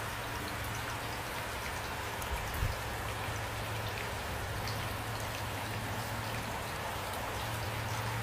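Steady rain, with many separate drops ticking onto a surface, over a low steady hum. A brief low thump about two and a half seconds in.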